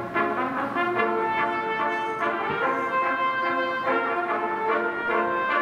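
Small brass ensemble led by trumpets, playing a piece live with several parts in harmony and held notes that move from chord to chord.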